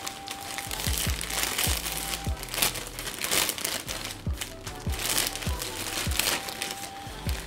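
A clear plastic clothing bag crinkling in the hands as it is opened and handled, in bursts. Under it runs background music with a steady drum beat about twice a second.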